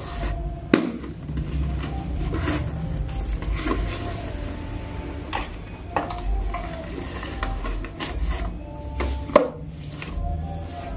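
Paper crinkling and tearing as a toy ladybug is pushed up through a paper sheet, with a few sharp taps, the loudest near the end.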